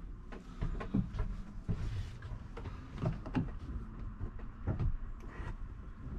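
Fold-down overhead bunk in a Lance 1172 truck camper being pulled down by hand: irregular light knocks, clicks and rubbing as the bunk frame moves and settles.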